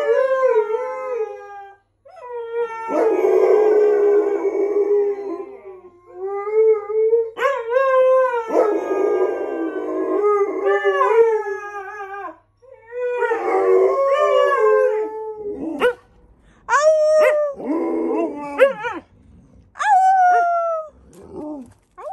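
Two Alaskan Malamutes, an adult and a puppy, howling together: long wavering howls that overlap for the first dozen seconds, then shorter howls that fall in pitch.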